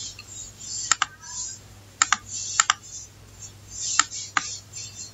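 Computer mouse clicking through a settings dialog: about five sharp, irregularly spaced clicks with faint rustling between them.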